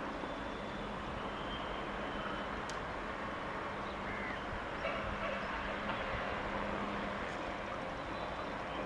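A passenger train running away into the distance: a steady, even rumble with a faint constant hum underneath.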